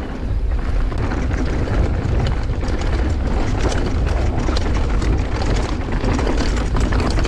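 Wind buffeting the camera microphone as a mountain bike rides over rough trail, a steady low rumble with a dense run of clicks and rattles from the bike and tyres.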